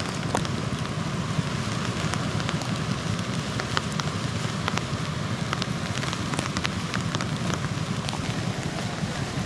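Strong onshore wind and breaking surf on a beach, a steady rushing noise with a low rumble and scattered crackles.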